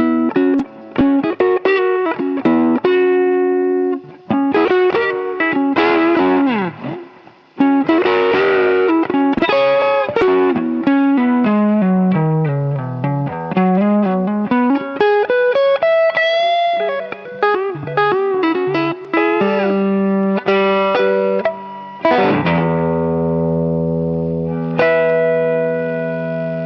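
Electric guitar playing blues licks: quick single-note phrases with notes bent up and down, ending in held chords over the last few seconds.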